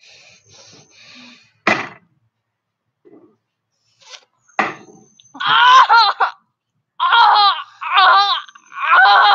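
A child laughing loudly in repeated high-pitched bursts through the second half. Near the start come quick, soft hissing breaths, about three a second, and one sudden sharp sound just under two seconds in.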